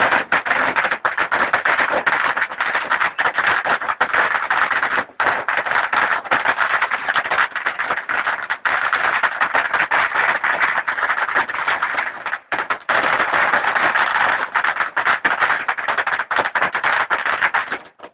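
Firework fountain spraying sparks: a loud, dense crackling hiss that dips briefly twice, then cuts off suddenly just before the end as the fountain burns out.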